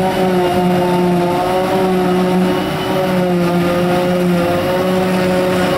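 Krone BiG X 500 self-propelled forage harvester running under load while chopping grass, a steady, loud drone with a pitched hum whose low note swells and drops every second or so.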